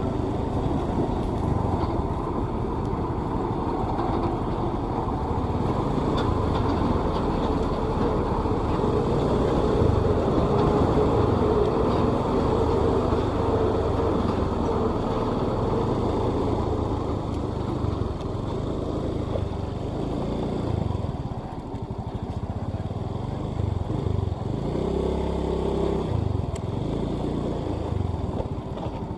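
Motor vehicle engine and road noise, running steadily.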